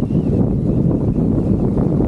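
Strong wind buffeting the microphone in a storm: a loud, steady, low rumble.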